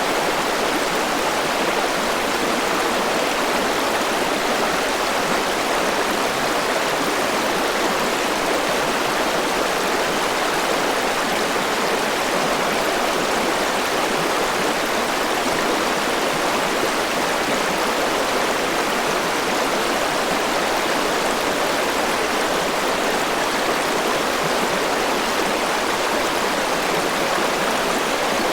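A rushing mountain river: water flowing over rocks in a steady, even rush.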